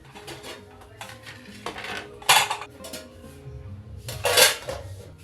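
Dishes and cutlery clinking and clattering as they are handled, with two louder clatters a little over two seconds in and about four seconds in.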